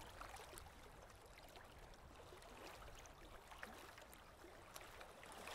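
Near silence: faint lapping of lake water, with scattered small ticks and a low rumble.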